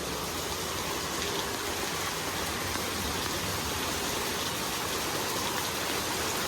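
Heavy thunderstorm rain pouring down steadily, a dense even hiss that builds slightly.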